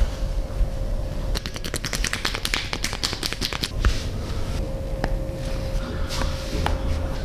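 A quick run of sharp taps lasting about two seconds, then a few single clicks spaced out, over a steady low hum.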